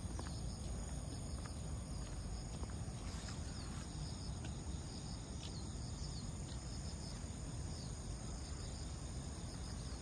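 Insects trilling steadily in the grass, a constant high shrill, over a low steady rumble.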